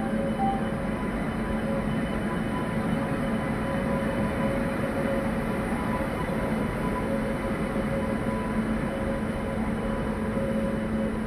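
Two coupled Indian Railways electric locomotives moving slowly past: a steady electric hum with several held tones over the rumble of wheels on the rails.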